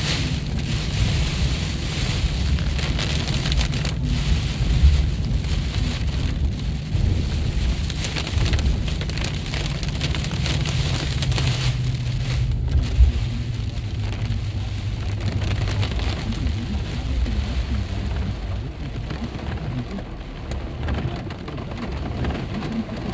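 Heavy rain pattering on a car's windshield and roof, heard from inside the moving car over a steady low rumble of engine and tyres on the wet road. Two brief louder thumps stand out, about five seconds in and again around thirteen seconds in.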